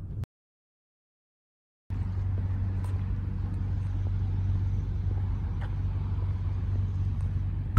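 Steady low vehicle rumble, broken near the start by a dead-silent gap of about a second and a half.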